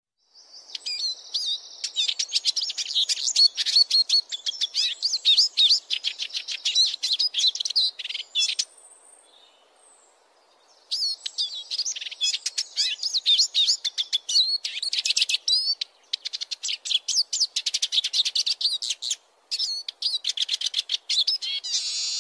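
Eurasian siskin singing: rapid twittering and trilling phrases of high chirps and whistles, with a pause of about two seconds near the middle.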